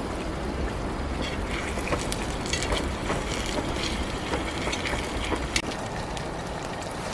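Strong gusting wind rumbling over the microphone, with scattered sharp taps against a surface throughout.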